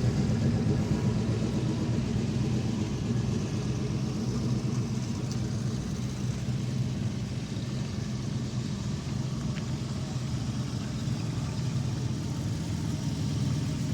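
Ford Mustangs' engines rumbling at low speed as the cars roll in, a steady low engine note that eases off a little midway and grows again near the end.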